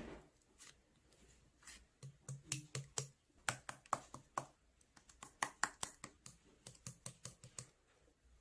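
An irregular run of sharp clicks, several a second, starting about two seconds in and stopping shortly before the end.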